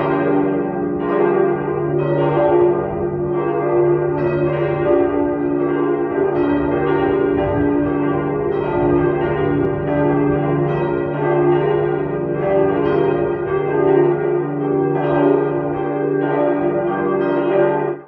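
Church bells ringing, several bells struck in an overlapping sequence about once a second, their tones ringing on between strikes. The peal cuts off suddenly at the end.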